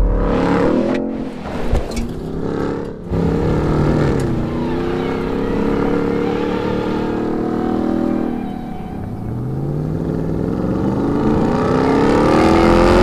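Ram 1500 TRX's supercharged 6.2-litre V8 revving hard under acceleration, its pitch climbing and dropping back several times, with a long rising pull in the last few seconds. The sound breaks off abruptly in a couple of places.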